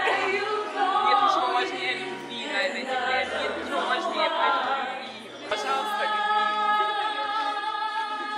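Several voices singing together without instruments, the melody moving freely; about five and a half seconds in they settle into a long held chord.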